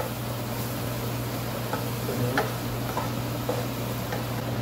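Wooden spatula stirring garlic, chili and curry spices frying in a nonstick pan, with scattered light taps and scrapes over a low sizzle. A steady low hum runs underneath.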